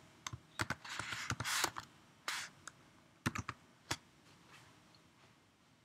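Typing on a computer keyboard: an irregular run of keystrokes for about four seconds, then it stops.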